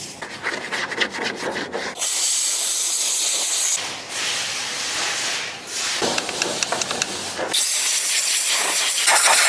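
Engine parts being cleaned: long hissing jets in several bursts, alternating with quick scratchy rubbing strokes.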